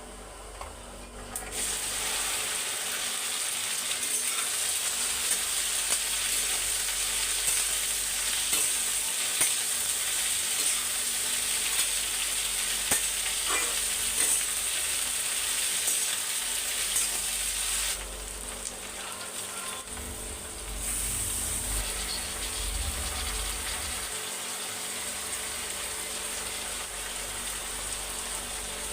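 Okra (bhindi) sizzling as it fries in hot oil in a pan, with a few light clicks. The sizzle starts about a second and a half in, dips for a few seconds past the middle, then carries on a little quieter.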